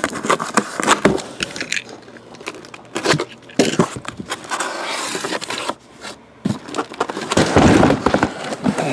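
Cardboard shipping case being handled and opened, with hobby boxes pulled about inside it: an irregular run of cardboard scrapes, knocks and rustling, with a louder stretch of scraping near the end.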